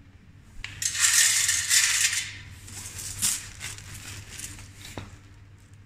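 A handful of coins tipped out of a vending machine's metal coin tray into a plastic bag: a jingling rush of coins about a second in, lasting over a second, then a few single clinks.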